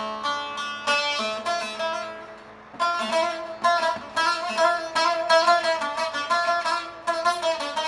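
Long-necked saz-type lute played solo with plucked melodic notes. The playing eases off about two seconds in, then picks up again with quicker, repeated plucked notes.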